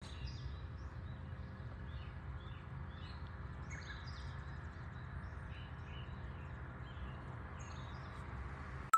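Early-morning outdoor ambience: small birds chirping and calling in short scattered notes over a steady low background rumble. It ends with a brief click.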